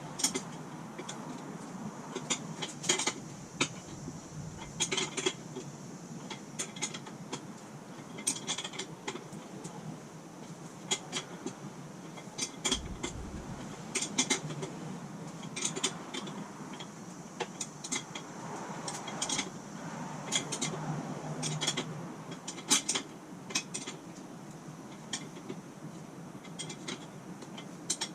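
Irregular metallic clinks and clicks of hand tools and metal parts being handled during motorcycle rear-end work.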